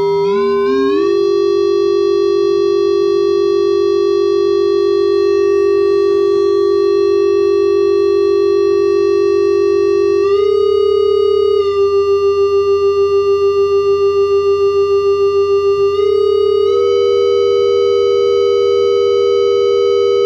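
Electronic tone generator run through a multi-effects pedal: a steady held tone joined by a second tone that glides up in the first second, then shifts up in steps. Partway through, the sound takes on a fast even wobble for a few seconds before steadying again.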